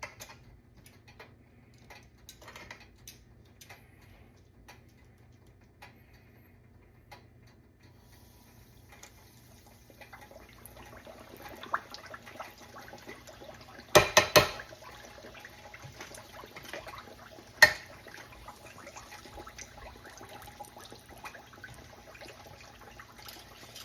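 Battered pork chop frying in 300-degree grease in a cast iron Dutch oven: a crackling sizzle that starts about ten seconds in and keeps going. A few sharp knocks come a little past the middle.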